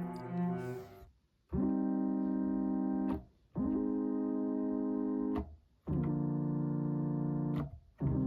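Arturia MiniLab MkII MIDI keyboard playing a GarageBand software instrument: a quick run of notes dies away in the first second, then four held chords follow, each lasting under two seconds and stopping abruptly as the keys are released, the last starting near the end.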